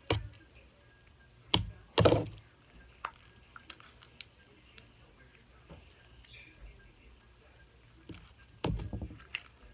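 A few scattered sharp clicks and knocks, as of small things handled on a desk, the loudest about two seconds in and a cluster near the end.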